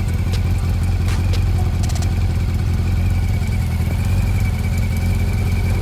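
Honda CB400 Spec 3's inline-four engine idling steadily, with a few sharp clicks in the first two seconds. The owner hears an intermittent ticking from the engine and suspects the timing chain tensioner.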